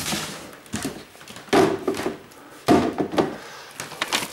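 Several knocks and thuds of household things being handled and set down in a small room, about five over four seconds.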